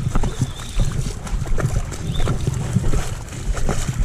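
Wind buffeting the microphone in an uneven low rumble, with scattered short knocks and scuffs mixed in.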